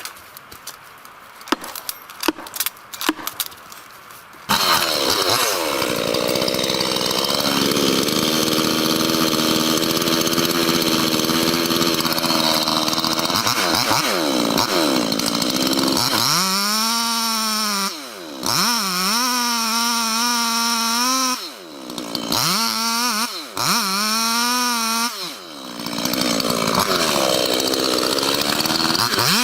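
A few scattered clicks and knocks, then a two-stroke chainsaw engine cuts in suddenly, running hard at high revs. In the second half it revs up and down repeatedly, with short drops in level between the revs.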